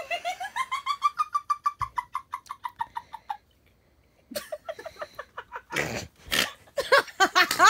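A woman laughing helplessly: a rapid string of high, squeaky laugh pulses that rises in pitch and then holds for about three seconds. After a short pause come lower laughs and loud, breathy gasping bursts near the end.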